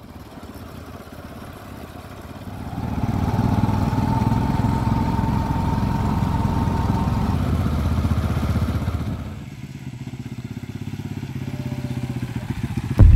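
Motorcycle engine running as the bike is ridden along. It gets much louder about two and a half seconds in, with a faint, slightly rising whine over it, and drops back to a lower level about nine and a half seconds in.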